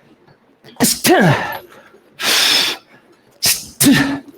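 A boxer's sharp exhaled breaths and short grunts, each paired with a punch, as he throws high jab, low hook combinations: two quick blows about a second in, a long hissing breath in the middle, and two more near the end. Some of the grunts drop quickly in pitch.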